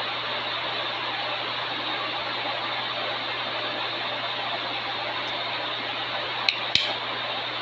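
Steady background whooshing noise with a low hum underneath, like a fan or room machinery, and two sharp light clicks close together near the end.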